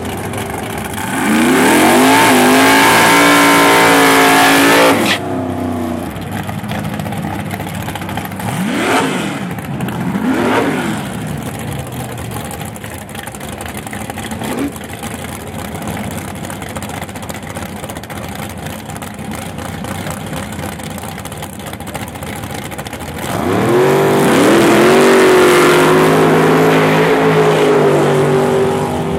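Drag car's engine revving hard for about four seconds, rising in pitch, then cutting off sharply: a burnout. Two quick throttle blips follow as it stages, then near the end the full-throttle launch, the engine rising and holding at high revs.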